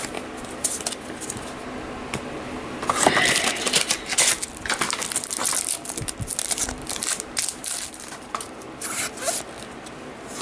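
Trading cards being handled and flipped through by hand: cards sliding and scraping against one another with irregular clicks and rustling, busiest through the middle.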